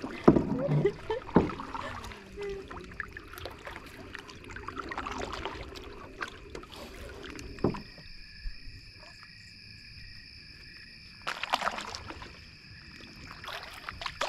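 Canoe paddling from a Swift Keewaydin canoe: paddle strokes and splashes in the water with a few sharp knocks against the hull, loudest in the first two seconds and again about eleven seconds in.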